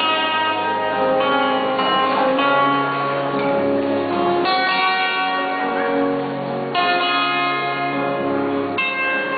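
Guitar playing a slow instrumental passage of held notes that change every second or two, with no singing.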